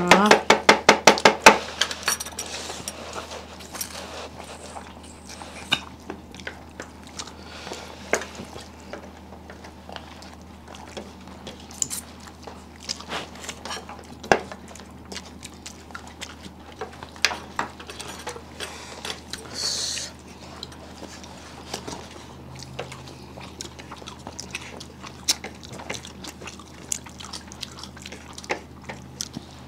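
Plates and utensils clinking and knocking at a meal: a quick rattle of clicks in the first second or so, then scattered light knocks, over a steady low hum.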